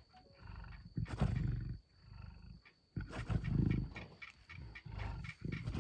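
Lions feeding on a zebra kill, growling deeply in several separate bouts of about a second each.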